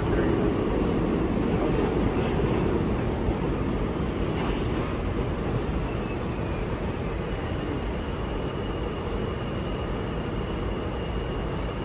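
Interior of an R211 subway car in motion: the steady rumble of wheels and running gear, easing slightly as the train slows toward a station. A thin, steady high whine joins past the halfway point.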